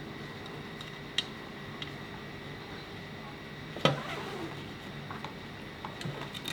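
Diving backplate and harness hardware being handled while webbing is worked through it: a few small metallic clicks and one louder knock about four seconds in, over a steady low hum.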